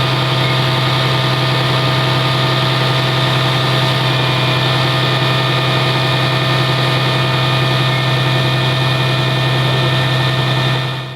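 An engine running steadily at idle with a strong low hum, fading out at the very end.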